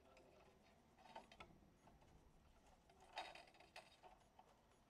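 Near silence with a few faint clicks, about a second in and around three seconds in, from a plastic filament guiding tube being handled and pushed into the 3D printer extruder's tube fitting.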